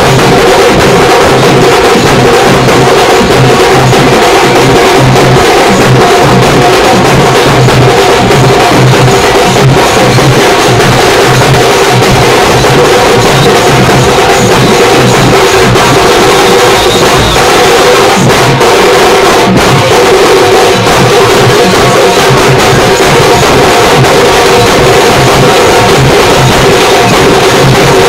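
Loud drum-heavy music with a steady pounding beat and a held tone above it.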